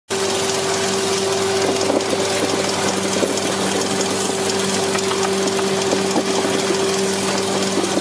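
Brush-roller vegetable washing machine running: a steady electric-motor hum under the hiss of water jets spraying over the turning brush rollers, with scattered light knocks.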